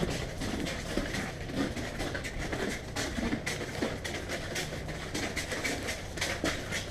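Footsteps and scuffing: irregular light knocks and crunches several times a second over a steady low hum.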